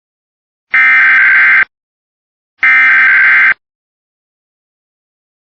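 Emergency Alert System SAME digital data bursts: two harsh, buzzing bursts of about a second each, a second apart, then the start of a much shorter burst at the very end. By their length the two long ones are header bursts and the short one an end-of-message burst.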